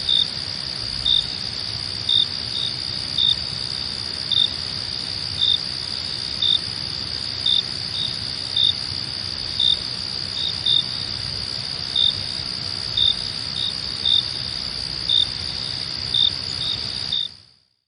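Crickets at night: a continuous high trill, with single chirps about once a second over a faint low hiss. The sound fades out quickly near the end.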